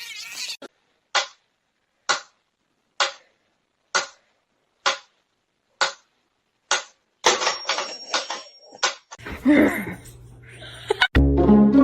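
Sharp knocks or taps, about one a second for some six seconds, followed by a busier rattling, noisy stretch. Music with plucked and bowed strings starts near the end.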